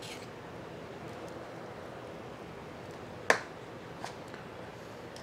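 Faint steady room hiss, broken by one sharp click about three seconds in and a much fainter tick just under a second later.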